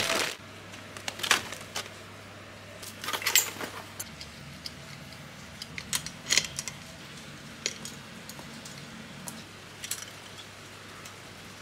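Metal parts of a spring-balanced swing-arm desk lamp clinking and clacking as they are handled and fitted together: scattered sharp knocks, some in quick little clusters, over a faint steady hum.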